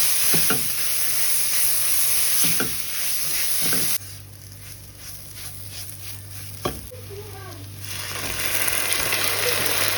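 Food sizzling in hot oil in a pan, with stirring. The sizzle cuts away suddenly about four seconds in, leaving a quieter stretch with scattered clicks and one sharp knock, then comes back about eight seconds in.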